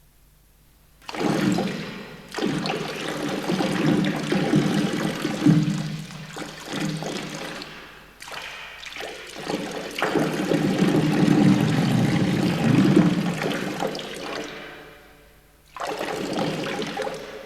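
A toilet flushing: uneven rushing and gurgling water that starts about a second in and dies away, followed near the end by a second gush.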